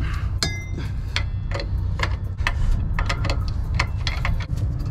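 Hand wrenches clicking and clinking against metal fittings while tightening a truck's disc brake chamber: irregular sharp ticks, two or three a second, one with a short metallic ring about half a second in, over a steady low rumble.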